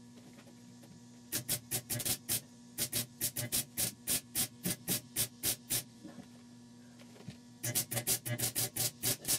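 Welder firing in short, quick bursts, about four a second, to fill a rust pinhole in sheet-metal roof panel, in two runs with a pause of about two seconds between them. A steady electrical hum sits underneath.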